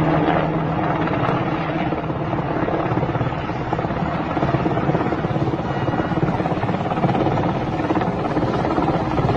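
UH-60 Black Hawk helicopter flying overhead: steady, fast chop of the rotor blades over the twin-turbine engine noise.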